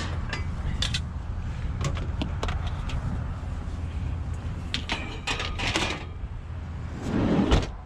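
Metal scrap being shoved into a packed van, with scattered knocks and clatters and a louder scraping thud near the end as the load jams, over a steady low rumble.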